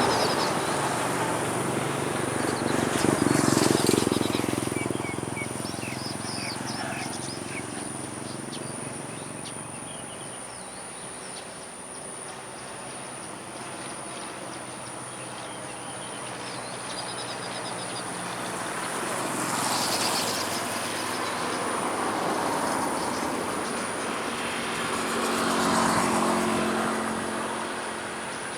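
Outdoor ambience: traffic noise swelling and fading as vehicles pass, loudest a few seconds in and again near the end. Small birds chirp now and then, over a steady thin high-pitched whine.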